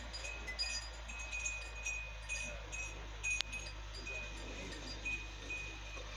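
Metal tube wind chime tinkling: short ringing notes at a few fixed pitches, sounding irregularly throughout over a low steady hum. One sharp click comes just past halfway.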